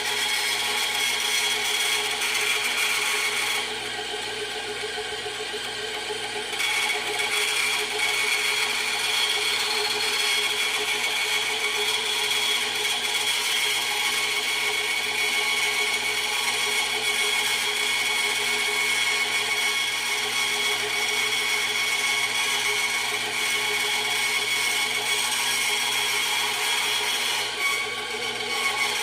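Micro-Mark benchtop band saw running with a steady whine while cutting a wavy line in sheet metal. About four seconds in, the sound drops and thins for a few seconds, then returns to full strength.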